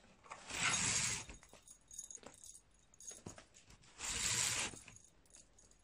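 Cloth rustling close to the microphone in two swells of about a second each, with a few faint clicks between them: clothes brushing against the phone as garments in a wardrobe are handled.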